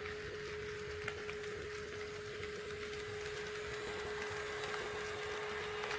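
HO-scale model train running along the track: a steady whine with a few faint clicks from the wheels over the rail joints.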